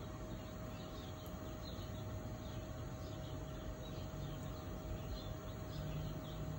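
Outdoor ambience: many short, high chirps from small animals in the background over a steady hum.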